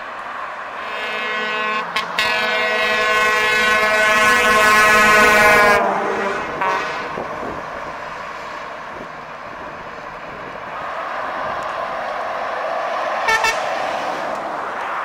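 Truck air horn blown in one long blast of about five seconds, its pitch dropping as it ends while the truck passes under the bridge; then steady motorway traffic, and a short double toot of a horn near the end.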